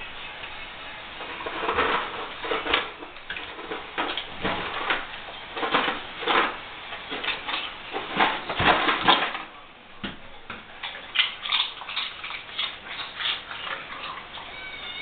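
A dog nosing open a pull-out kitchen trash drawer and rummaging in the garbage: irregular rustling, scraping and knocking, with a short lull about ten seconds in.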